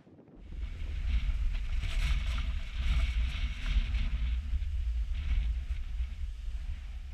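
Storm wind buffeting the camera microphone with a heavy low rumble, over the hiss of rough storm surf. It starts abruptly about half a second in.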